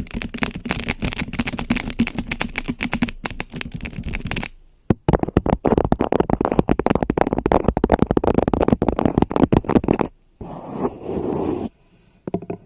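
Rapid, dense scratching and tapping close to a microphone, an ASMR hand and mic trigger. It comes in two long runs with a short break about four and a half seconds in, then a shorter, softer rustle near the end.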